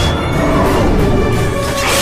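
Dramatic soundtrack music from a televised sword-fight scene, with a sudden crash of a blow near the end.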